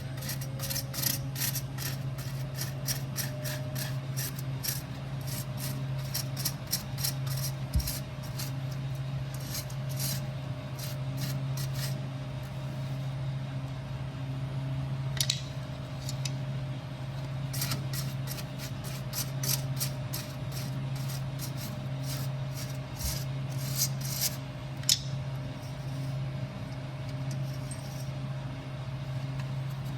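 Repeated short scrubbing and scraping strokes as the beer cooler's refrigeration unit is cleaned, coming in irregular clusters. Under them runs the cooler's steady low motor hum.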